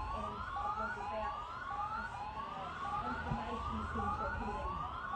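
Tsunami warning siren sounding a repeated rising whoop that climbs and drops back a bit faster than once a second, over a low rumble of traffic.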